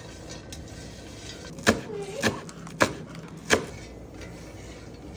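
Four sharp knocks or clicks in a row, spaced about half a second to a second apart, over a steady low background hum.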